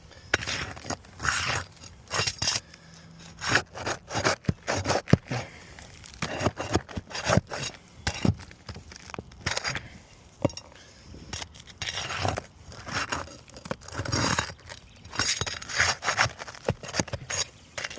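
Hand work on an old asphalt shingle roof: irregular scraping and rubbing with sharp clicks and knocks as shingles are lifted and nails worked loose, the brittle, granule-shedding shingles grating against each other.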